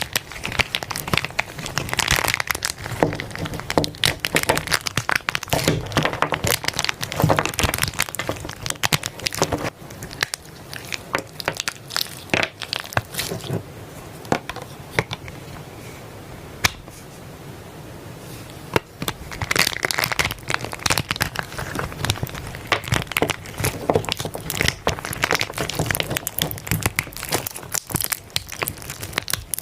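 Soft slime being squeezed and pressed by hand, giving dense runs of crackling clicks and small pops. About halfway through it goes quieter, with only a few scattered clicks, then the crackling picks up again.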